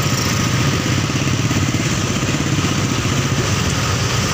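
Motorcycle engine running steadily on the move, with wind and road rush.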